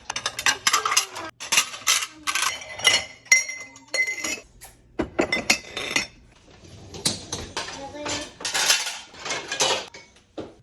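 Hard objects clinking and clattering, like dishware or metal utensils being handled, in quick irregular knocks, with a brief ringing tone about three seconds in.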